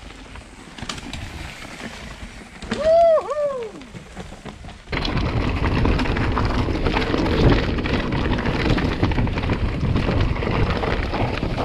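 A brief two-note pitched call, its pitch rising and falling, about three seconds in. About five seconds in a loud, dense rumble starts suddenly and carries on: wind buffeting the microphone and mountain-bike tyres running over a rough trail.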